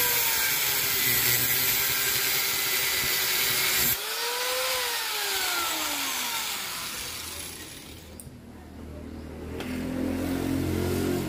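Electric angle grinder with a cutting disc cutting into the steel end of a crankshaft, its pitch dropping under load. About four seconds in the cutting stops and the grinder winds down with a long falling whine; a low machine hum comes up near the end.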